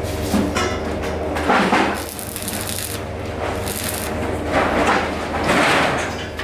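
Electric arc welding on a steel-tube chair frame: several short crackling bursts, each about half a second, as joints are tack-welded. Under them runs a steady electrical hum.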